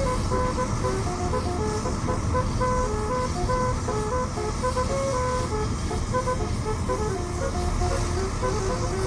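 Basuri telolet horn on a medium tour bus playing a tune: short held notes stepping up and down, one after another, over a steady low vehicle rumble.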